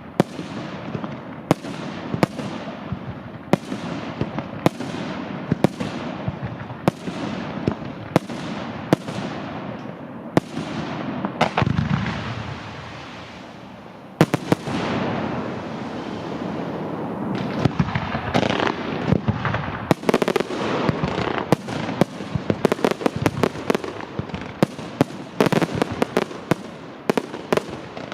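Aerial fireworks display: shell bursts bang about every three-quarters of a second at first, give way to a stretch of dense crackle and rumble in the middle, then quicken into a rapid barrage of bangs in the second half.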